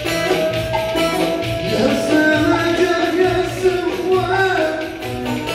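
Ankara oyun havası folk dance music, with a melody bending in pitch over plucked strings and a steady low drum beat.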